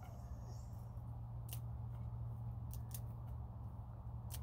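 Marigold petals being pulled off the flower head by hand, giving a few small, crisp snaps over a steady low hum.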